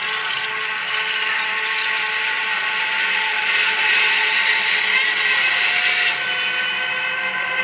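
A steady hissing, grinding drone with several held tones underneath, a little louder in the middle.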